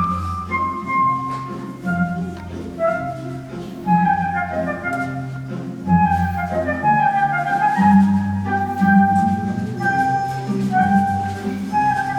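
Instrumental background music, a melody on flute-like tones over a steady bass line.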